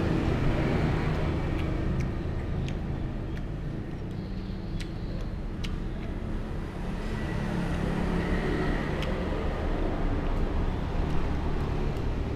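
Motor-vehicle traffic: a low engine rumble that eases off and then builds again. Occasional light clicks, like cutlery on a dish, sound over it.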